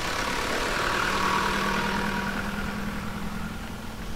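Engine of a four-wheel drive passing close by on a dirt track: it grows louder, is loudest a second or two in, then fades as it goes by.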